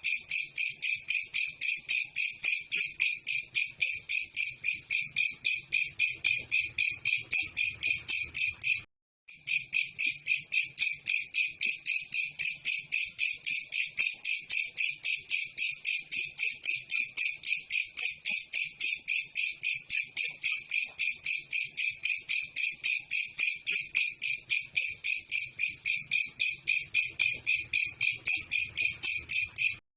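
Belalang kecek, a singing katydid, calling in a rapid, even train of sharp chirps, with a short break about nine seconds in.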